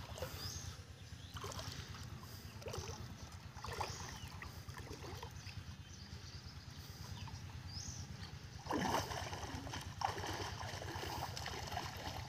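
Water splashing and sloshing around a person's legs as he wades through shallow pond water carrying a basin, with a few louder splashes about nine and ten seconds in, over a steady low rumble.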